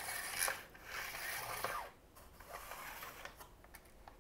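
The plastic carriage of a Silver Reed LK-150 knitting machine being slid along its needle bed by hand, a rubbing, rattling scrape that comes in two pushes with a short break about halfway.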